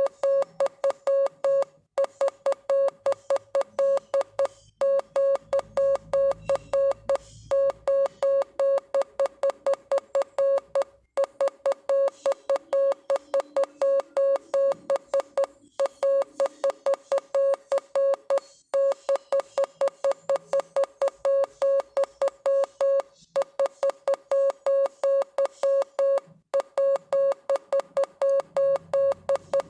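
Morse code sent as a single mid-pitched beep tone, keyed rapidly in dots and dashes, with short pauses every few seconds between words.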